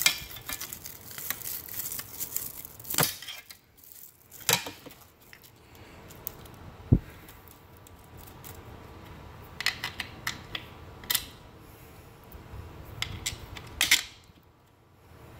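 Hands handling and fitting wheelchair footplates with ankle straps: irregular clicks and light knocks of hard plastic and metal hardware, with strap rustling and a dull thump about seven seconds in.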